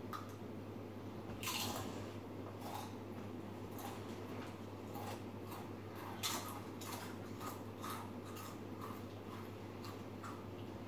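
Someone chewing crunchy tortilla chips (Doritos) close to the microphone: irregular crisp crunches, a few a second, over a steady low hum.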